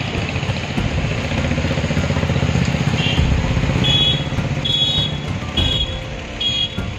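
Motorcycle and scooter engines running as they pass through traffic on a wet street, under a steady wash of road noise. A run of five short, high beeps comes in about three seconds in and ends near the end.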